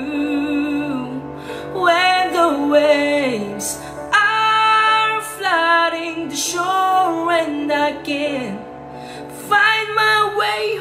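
A man singing alone in a high, strained falsetto, with long held notes that slide and waver. His voice strains on the high notes, the sound of someone who has paused the music in his headphones and keeps singing without it.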